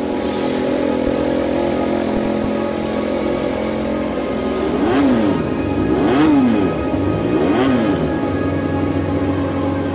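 KTM RC16 MotoGP bike's V4 engine idling, then blipped three times, each rev rising and falling quickly, about five, six and seven and a half seconds in.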